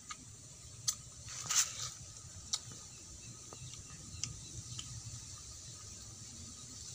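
Mouth sounds of someone eating a large round fruit: a few sharp wet clicks of chewing and a short, noisier bite or slurp about one and a half seconds in, over a steady low background.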